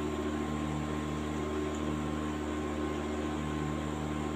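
Steady mechanical hum, a few constant tones over a faint even noise, as from a fan or kitchen appliance motor running.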